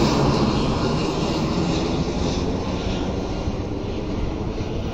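Airliner on landing approach moving away: a steady broad rumble of engine noise that fades slowly.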